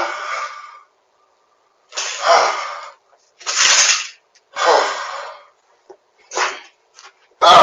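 A person laughing helplessly in breathy, wheezing bursts, about six gasping fits roughly a second apart.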